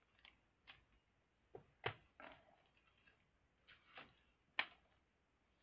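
Near silence: room tone broken by a few faint, irregularly spaced clicks and knocks, the sharpest about two seconds in and near the end.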